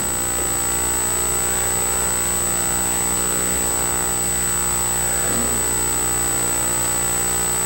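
Steady electrical hum and hiss with many humming overtones and a thin high whine, with faint voices in the background about half a second in and again around five seconds.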